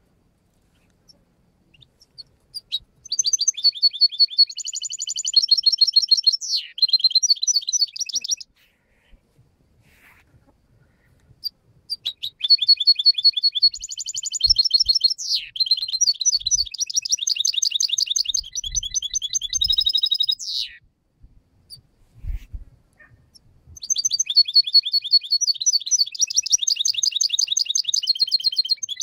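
Caged finch singing in three long bouts of fast, high twittering notes, each lasting several seconds. Some phrases end in a quick falling note. The song of a bird in breeding condition ("encelao").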